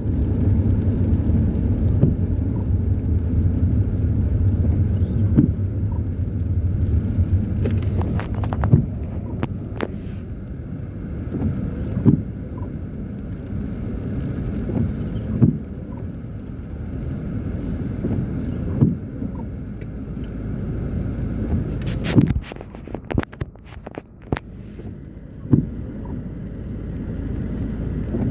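Diesel freight train rolling slowly past: a low, steady locomotive engine rumble with single clunks from the wagon wheels every couple of seconds.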